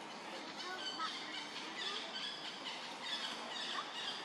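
Outdoor animal calls: many short, high-pitched chirps and squeaks repeated over a steady background hiss.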